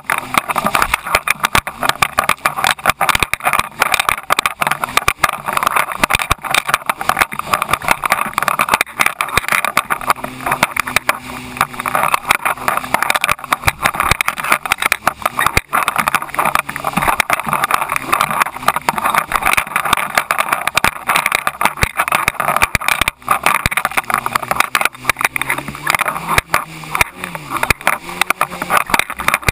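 Jet ski running at speed over choppy water: a dense rush of wind and spray with rapid, irregular slaps of the hull on the waves, and the engine's note faintly rising and falling underneath.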